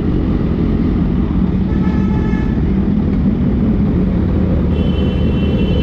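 Heavy wind buffeting and road noise on a helmet-mounted action camera while riding a motorcycle in traffic. A steady high tone comes in near the end.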